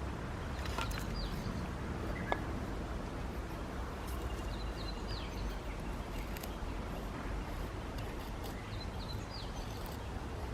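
A small bird calling in three short bursts of high chirps a few seconds apart, over a steady outdoor background rush, with scattered light clicks and one sharper snap a couple of seconds in.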